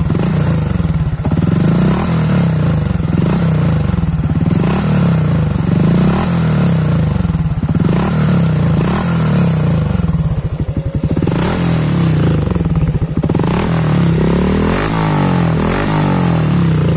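Honda Dash 125fi's single-cylinder four-stroke engine being revved through an aftermarket Espada E4 exhaust with the stopper silencer fitted: a long run of throttle blips, each rising and falling in pitch, about one every second or so.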